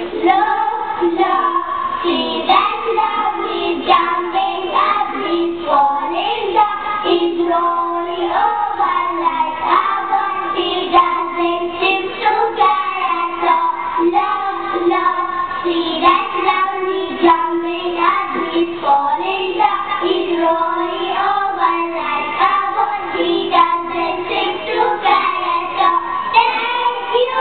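A small group of young schoolgirls singing a song together into a microphone.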